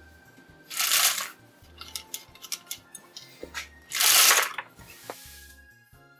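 Two short hissing puffs of air, about three seconds apart, out of a small 3D-printed engine's homemade carburetor as the engine is turned backwards to test whether the carburetor draws and spits out fluid. A few light clicks between the puffs, over background music with a low stepping bass.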